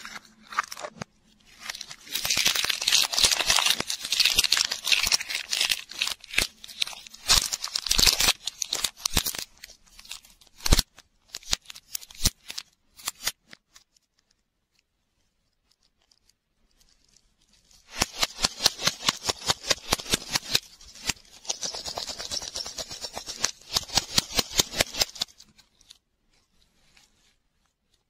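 Shiny plastic wrapper on a toy-and-lollipop ball crinkling and tearing as it is peeled off by hand, in dense runs of crackles. There is a pause of a few seconds midway, then more crinkling.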